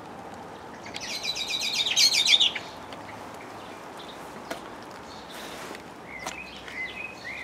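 A songbird singing one fast phrase of rapidly repeated high notes, about a second and a half long, growing louder and ending in a flourish; a few fainter short calls follow near the end.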